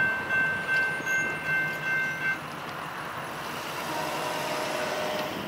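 Railroad crossing bell ringing in even strokes, about two a second, then cutting off a couple of seconds in as the gates reach upright, the sign that the crossing is clearing. Cars then drive over the crossing with a steady rush of engine and tyre noise that grows slightly.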